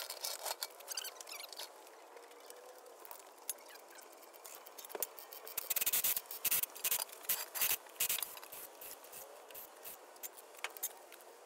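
Floor jack being pumped with faint squeaks, then a run of sharp, irregular metallic clicks and clinks as the lug nuts come off the rear wheel, densest from about halfway.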